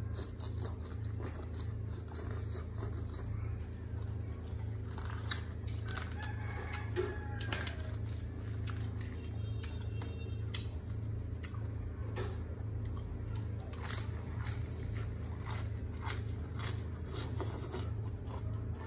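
Close-up chewing and wet mouth clicks from eating boiled octopus and fresh lettuce, over a steady low hum. A rooster crows in the background about six seconds in.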